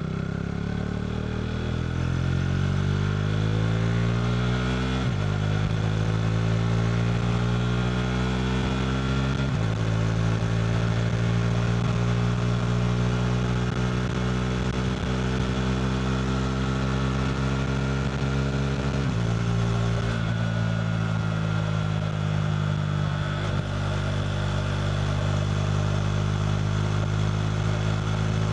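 KTM RC390's single-cylinder engine running through a Two Brothers slip-on exhaust under way. It climbs in pitch under acceleration, with upshifts about five and ten seconds in that drop the pitch. It then holds a steady cruise, with another shift down in pitch a little before twenty seconds.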